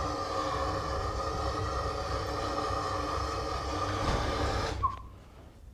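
Handheld gas blowtorch running with a steady hiss as it lights kerosene squirted into a waste oil burner. The torch cuts off just under five seconds in with a short chirp.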